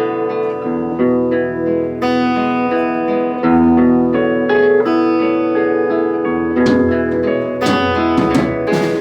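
Live guitar playing a song's intro: picked notes ringing over sustained chords. Sharp drum or cymbal hits come in over the last couple of seconds.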